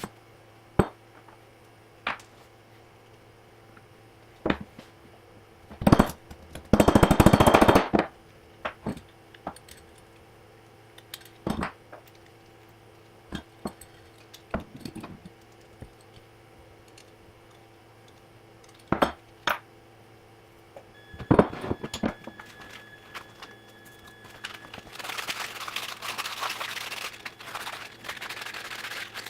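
Small hard objects handled on a workbench: scattered clicks, knocks and clinks, with a louder noisy burst about seven seconds in and a stretch of hissy noise near the end, over a steady low hum.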